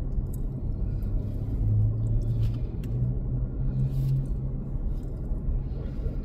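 Low, steady rumble of a car heard from inside its cabin while in slow, bunched-up traffic, with a low engine hum that swells slightly in the middle.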